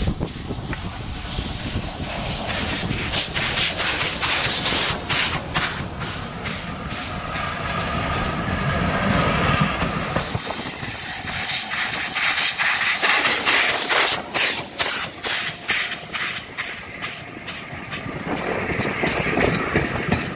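Class B1A steam locomotive No. 251 passing close by with its train: hissing steam and a rapid run of clicks from the wheels on the rails. The deep rumble thins out about halfway through, as the locomotive goes by.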